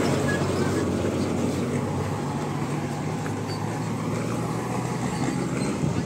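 REO 6x6 truck engine running steadily as the truck drives along a dirt road, a low drone mixed with road noise.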